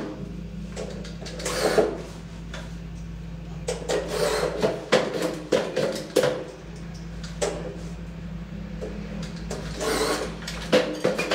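Irregular clusters of short clicks and knocks from hand work on ceiling trim, over a steady low hum.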